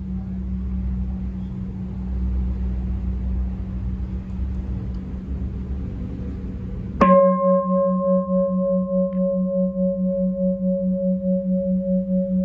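A 40 cm six-hand Huế bowl bell, cast from red copper and tin, hums steadily with a slow, even pulse as an earlier stroke dies away. About seven seconds in it is struck again: a sharp hit, then a bright ring of several tones. The higher tones fade within a few seconds, while the low pulsing hum rings on.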